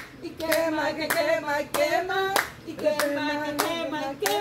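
Women singing a Spanish-language gospel chorus with steady hand clapping to the beat, a little under two claps a second.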